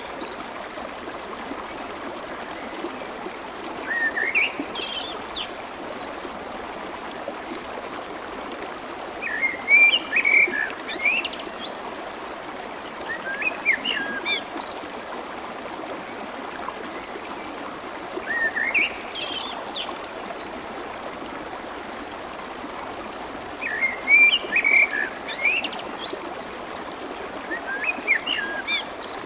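Steady babbling of clear, fast-flowing water, with a songbird's short chirping phrases repeating about every four to five seconds.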